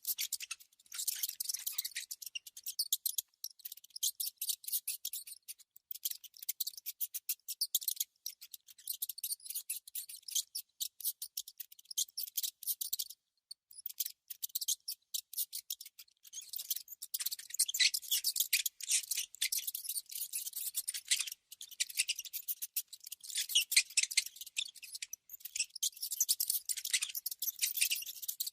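Mouse sound effect: fast, dense high-pitched scratching and clicking in long runs, with a brief pause about halfway through.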